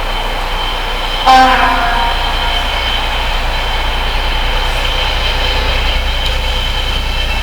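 Train running past with a steady rumble and a thin high whine, sounding one short horn blast about a second in; the rumble grows slightly louder afterwards.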